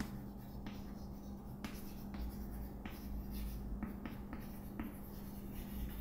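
Chalk writing on a chalkboard: a string of short, irregular scratching strokes and light taps, over a steady low electrical hum.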